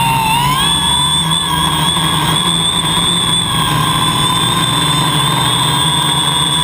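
Homebuilt drone's motors and propellers running in flight, heard from the onboard camera: a steady whine that rises in pitch about half a second in as the motors speed up, then holds steady.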